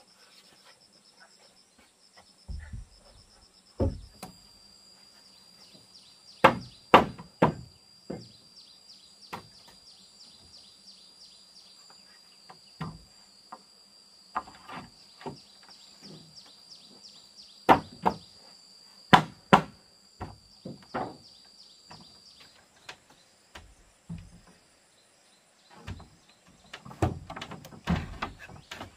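Irregular, sharp wooden knocks and thuds as heavy wooden boards are handled and set against the timber posts of a house frame, sometimes two or three in quick succession. A steady high insect buzz runs behind them and stops a little after the middle.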